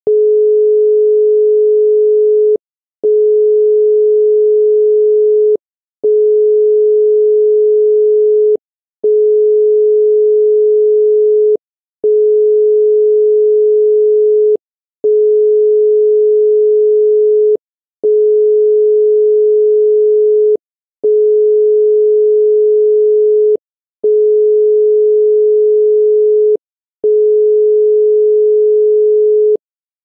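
Australian telephone network 'number unobtainable' tone: a single steady 425 Hz tone, 2.5 seconds on and half a second off, repeating ten times. It signals that the dialled number has not been recognised by the network as valid.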